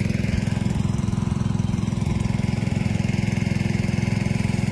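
Small engine running steadily at a constant speed with an even, fast throb, driving a water pump that is draining the pond.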